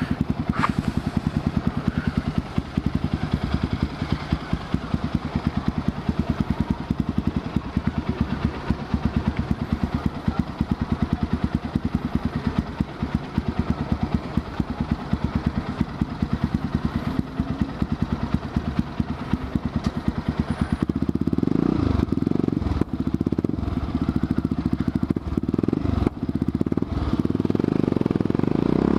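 Honda NX4 Falcon's single-cylinder engine running under way, its firing pulses even and steady; from about two-thirds of the way in it grows louder and rougher.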